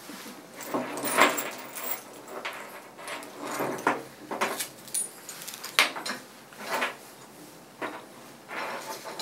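Dog harness and leash being handled and fitted onto a small dog: metal buckles and clip clink and the padded fabric rustles in scattered short sounds.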